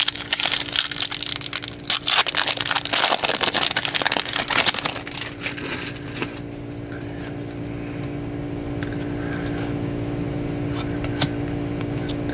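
Crinkling and crackling of a foil card-pack wrapper being handled and torn open for about six seconds. It then stops, leaving a steady low electrical hum and a single click near the end.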